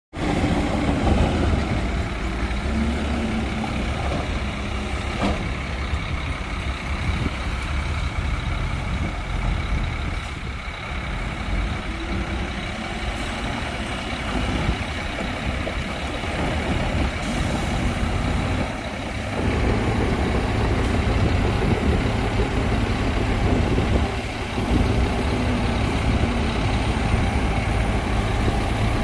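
Heavy earthmoving machinery's diesel engine running steadily under a low rumble, with a faint steady high whine; it grows louder about two-thirds of the way through.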